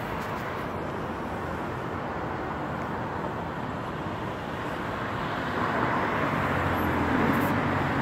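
Road traffic: a steady hiss of passing cars, with one vehicle's engine growing louder over the last two or three seconds.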